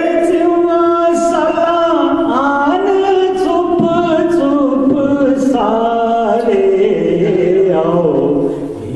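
A man singing a Bhaderwahi poem unaccompanied, in long held notes that step up and down in pitch, with a short pause for breath near the end.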